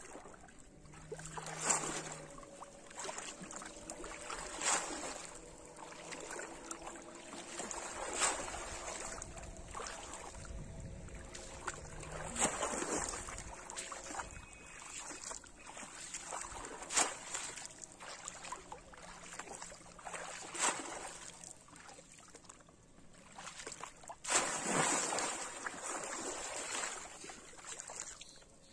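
Water splashing and sloshing as a person wades through shallow muddy water and gropes underwater with the hands, with a sharper splash every few seconds and a longer stretch of splashing near the end.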